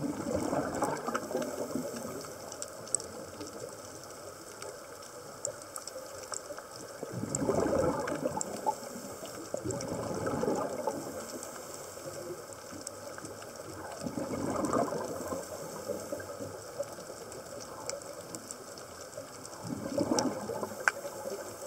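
Scuba regulator underwater: bursts of exhaled bubbles every five or six seconds, with a constant faint crackle of fine clicks between them.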